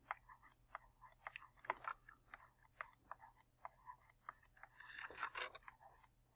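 Faint clicks and taps of a stylus tip on a tablet while handwriting, a few every second, with a short scratchy pen stroke about five seconds in, over a faint low hum.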